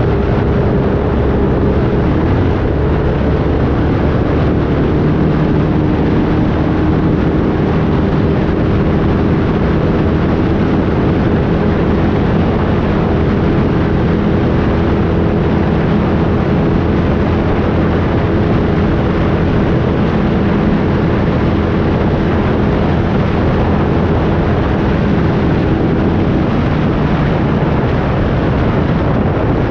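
Off-road race vehicle's engine running steadily at speed, mixed with dense wind and terrain noise, with no let-up.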